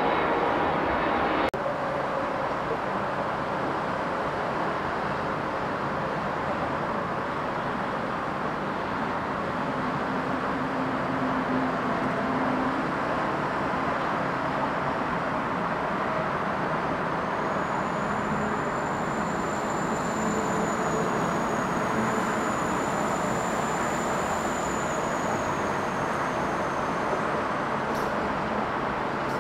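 Steady noisy rumble of airport and road traffic, with a high, slightly wavering jet-engine whine from about the middle until near the end.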